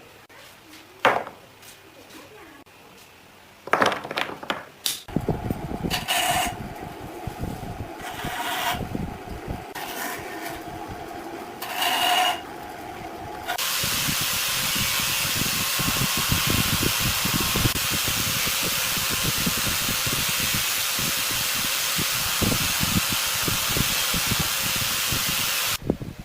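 Power tool working wood: a few knocks, then short runs of a pitched whine, then a loud, steady run of about twelve seconds that cuts off suddenly near the end.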